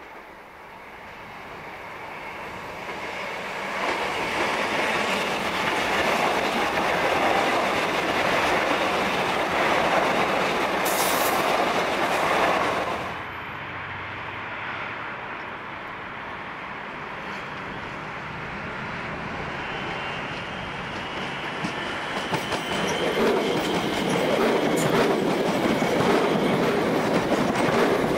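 Melbourne suburban electric multiple-unit trains (Comeng and Siemens sets) running past on the line: a steady, rising rumble of wheels on rail that swells as a train approaches, with a brief high hiss at its loudest point. The sound drops suddenly about halfway through, then builds again as another train passes close by.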